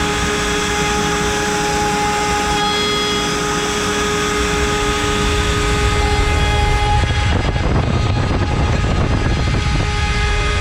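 CNC router spindle turning an 8 mm cutter at 24,000 rpm, milling wood: a steady high whine over the rough noise of the cut. The cutting noise grows louder and rougher from about seven seconds in, easing again near the end.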